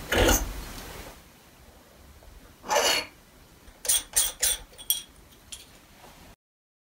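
Hands removing the star diagonal and visual back from the rear of a Meade telescope: a sharp knock at the start, a scrape about three seconds in, then a quick run of short clicks and squeaks from the metal parts. The sound cuts off suddenly near the end.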